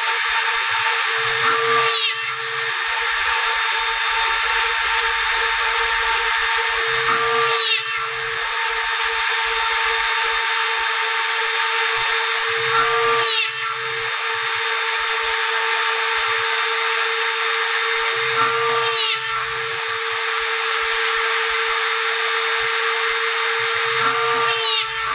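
Rotary tool used as the spindle of a homemade wooden CNC router, running with a steady high whine. About every five to six seconds its sound briefly shifts and dips, with a short low hum just before, five times in all.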